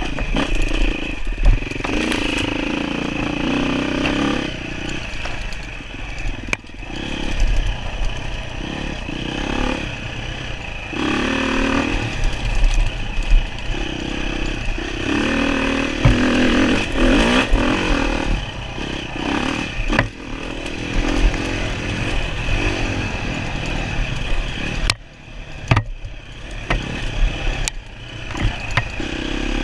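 Enduro dirt bike engine revving up and down as it is ridden over rough ground, with rattling and knocks from the bike.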